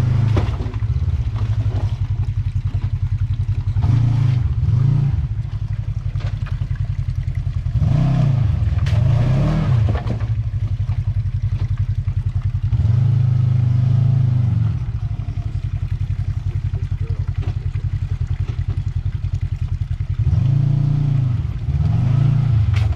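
Side-by-side UTV engine running steadily, revved in about five bursts as the machine crawls up a rocky climb, with a few knocks and clatter from the rocks.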